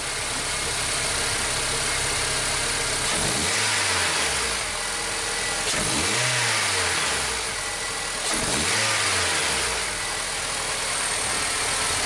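A 2006 Honda Civic's 1.8-litre R18A1 four-cylinder engine idling in park and revved three times, each rev rising and falling back over about a second and a half. This is a no-load rev test of a broken side engine mount, which does not give itself away with no load on the engine.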